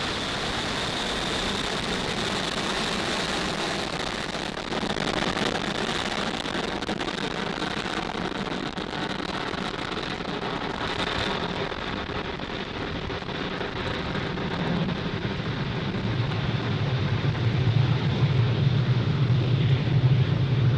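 Falcon 9 first stage's nine Merlin 1D engines roaring steadily during ascent. About twelve seconds in the hiss goes duller, and in the last few seconds a heavier low rumble builds.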